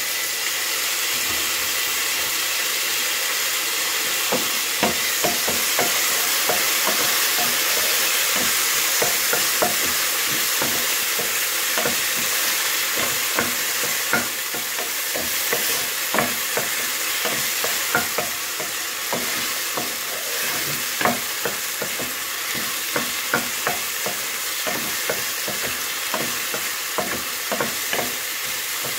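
Chopped tomato, garlic, ginger and onion sizzling in hot oil in a nonstick pan, with a steady hiss. A wooden spoon stirs them, scraping and tapping against the pan in frequent light knocks.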